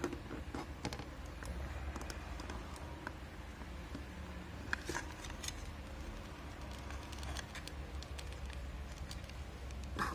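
Faint scattered clicks and handling noise of small plastic action-figure parts, a plastic gun being pushed into the figure's hand, with a small cluster of clicks about halfway through, over a low steady room hum.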